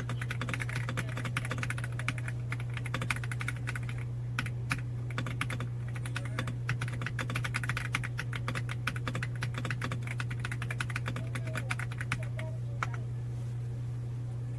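Fast typing on an AULA F87 mechanical keyboard: a rapid run of key clacks that eases off briefly about four seconds in and again near the end, over a steady low hum.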